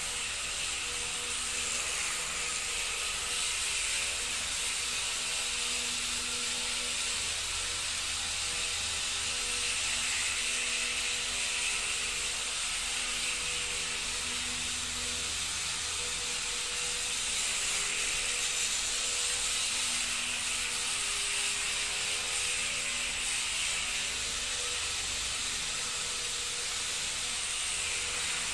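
Self-balancing gyroscopic two-wheeled model vehicle running: its high-speed flywheel rotor and small electric motors give a steady whirring hiss, with faint hum tones that come and go.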